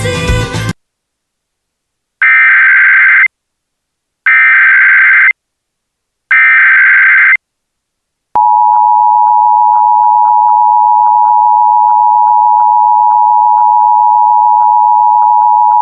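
Emergency Alert System SAME header: three one-second bursts of digital data tones, about a second apart. About eight seconds in, the two-tone EAS attention signal (853 and 960 Hz together) begins and sounds steadily, announcing an emergency alert, here an AMBER Alert.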